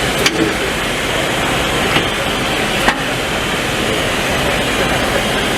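Heavy-duty triangular stroke belt sander running steadily, its belt sanding a box's corners under a hand pad, with three sharp knocks.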